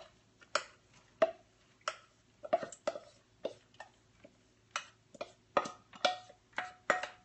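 Stainless steel mixing bowl knocked and scraped as diced vegetables are scraped out of it into a skillet: a string of irregular sharp clicks, roughly two or three a second, the last few ringing briefly like struck metal.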